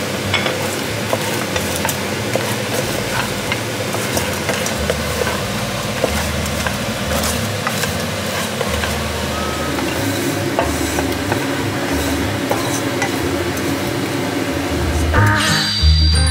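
Fried chicken wings sizzling in a thickening coconut-sugar and fish-sauce glaze in a wok, stirred and tossed with a wooden spatula that scrapes and clicks against the pan. Music comes in near the end.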